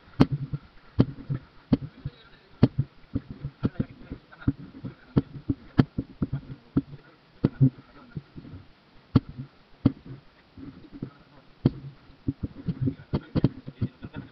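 Irregular sharp clicks and knocks, roughly one to three a second, of plastic cups, lids and utensils being handled, with low voices murmuring underneath.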